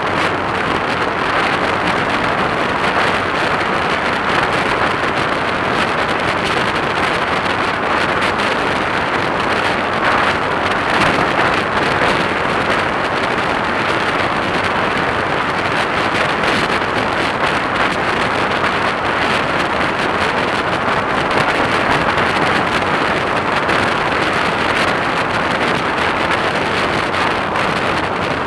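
Steady rush of wind over the microphone of a camera on a motorcycle riding at road speed, the bike's running noise buried in the wind.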